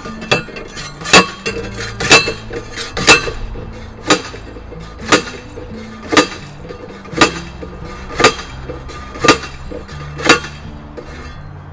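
Pole pounder (post driver) striking the top of a steel chain-link fence terminal post, about ten ringing metallic clanks roughly one a second, driving the post into the ground.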